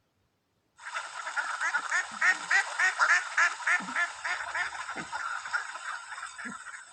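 Ducks quacking: a rapid chorus of many overlapping quacks that starts suddenly about a second in, is loudest in the middle and carries on more softly toward the end.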